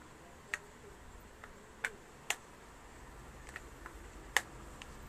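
Flat iron clamping and sliding through hair, giving a scatter of short, sharp clicks at uneven intervals, with the loudest near the end.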